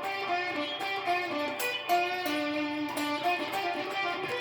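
Electric guitar playing a quick single-note lick in G, picked notes stepping up and down. It settles on a long sustained note near the end.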